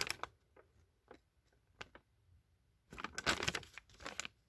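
Paper rustling as pages of an instruction booklet are flipped through, preceded by a few light handling clicks; the rustling comes in a dense burst about three seconds in and lasts just over a second.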